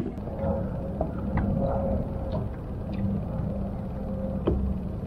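Low steady rumble aboard a fishing boat with a faint steady hum, broken by a few sharp taps and clicks, the loudest a thump about four and a half seconds in.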